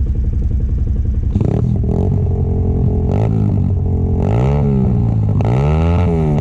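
Stels Guepard 850 ATV engine running under way, steady at first, then revved up and back down twice in the second half as the throttle is worked.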